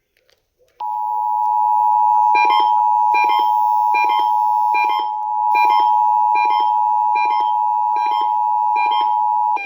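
Emergency Alert System attention signal: a loud, steady two-tone alert tone starts about a second in and holds for about nine seconds. A second beep pulses over it roughly every two-thirds of a second from a couple of seconds in.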